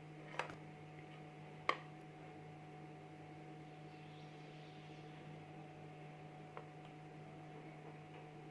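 Steady low electrical hum, with two sharp knocks in the first two seconds and a faint tap later on.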